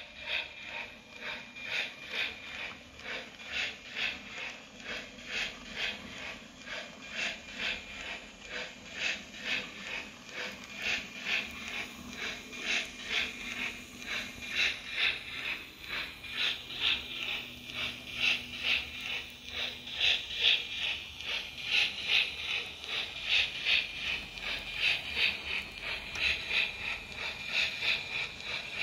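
HO scale model of a South Australian Railways F class steam tank locomotive running, with a steady rhythm of short hissy beats about twice a second that grows louder about two-thirds of the way through.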